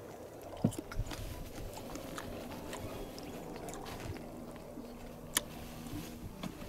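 Quiet eating and handling sounds: scattered small clicks and soft knocks of utensils and food, with one sharper click about five seconds in.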